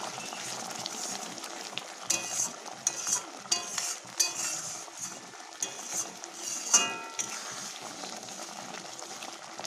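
Metal spatula stirring and scraping thick, bubbling hog plum pickle in a metal wok over a steady sizzle, with a run of clinks and scrapes against the pan a couple of seconds in and a sharp ringing clink near the end.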